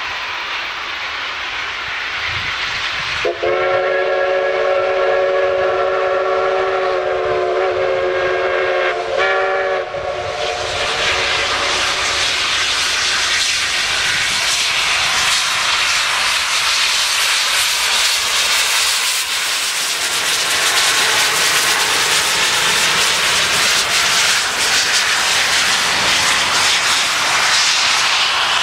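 Steam locomotive No. 488, a narrow-gauge K-36 2-8-2, running light. A long blast on its steam whistle starts about three seconds in and lasts some six seconds, then the steady hiss and exhaust of the engine grow louder as it draws close.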